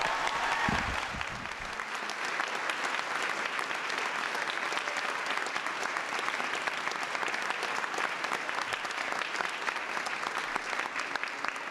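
Audience applauding: many hands clapping at a steady, even level throughout.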